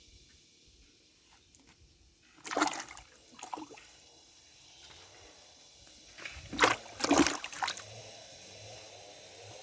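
Water splashing in short, sudden bursts: a few splashes about two and a half seconds in, then a louder run of splashes a few seconds later, with a faint steady trickle between.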